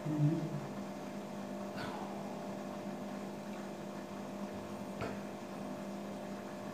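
Steady electrical hum with two faint clicks about three seconds apart.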